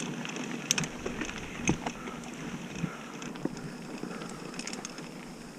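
Mountain bike climbing a dirt trail: steady tyre and wind noise, with scattered sharp clicks and rattles from the bike over the ground.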